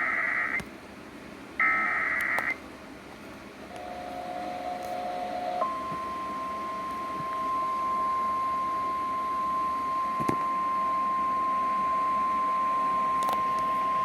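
EAS SAME header data bursts: two short, harsh warbling bursts of digital tones in the first two and a half seconds. A brief lower double tone follows. About five and a half seconds in, the NOAA Weather Radio 1050 Hz warning alarm tone starts and holds steady on one pitch, announcing a broadcast flash flood warning.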